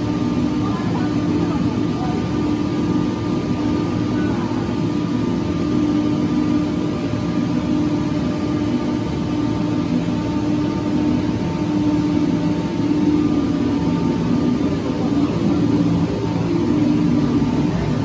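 Gondola cable car station machinery running: the bull wheel and cabin conveyor give a steady mechanical hum with a few held tones.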